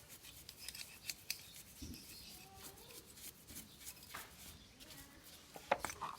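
A series of short clicks and scrapes from hand work on metal motorcycle engine parts being cleaned, irregular throughout and loudest near the end.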